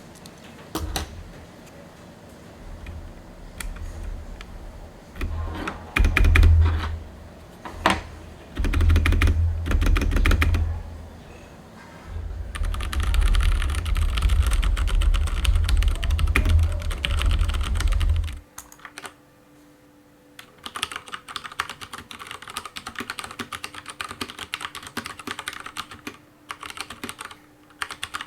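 Typing on an Akko 3087 mechanical keyboard with Cherry MX Brown switches: rapid keystrokes giving a rounded, non-clicky clack. For roughly the first two thirds a low rumble sits under scattered and then faster keystrokes. After that it stops, leaving dense, fast typing alone.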